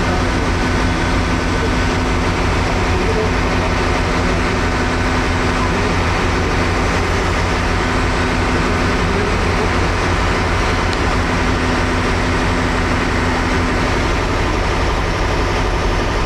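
A heavy engine idling steadily, with a low hum that doesn't change.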